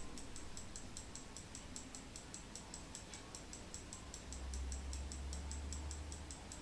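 Slava 11-jewel mechanical alarm clock ticking steadily, about five ticks a second. A low hum sits underneath for about two seconds past the middle.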